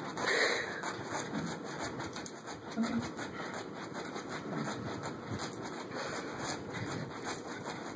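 Miniature schnauzer digging at fabric sofa cushions with its front paws: a continuous run of quick scratching and rubbing strokes on the upholstery.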